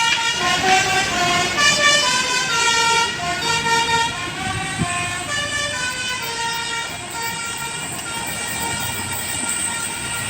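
Basuri musical bus horn (telolet) playing a quick tune of short stepping notes. The notes thin out after about six seconds, leaving vehicle noise.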